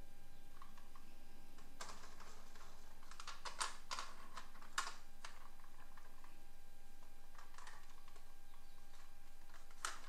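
Plastic toy vehicles clicking and clattering lightly against each other as they are handled in a cardboard box: scattered sharp clicks, several in a cluster a few seconds in.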